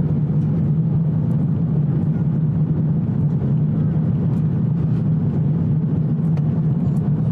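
Airbus A350-1000 cabin noise in flight: a steady roar of airflow and its Rolls-Royce Trent XWB engines, with a strong low hum underneath.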